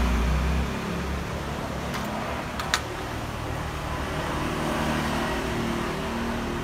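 Steady mechanical background rumble and hiss, with one sharp click a little under three seconds in.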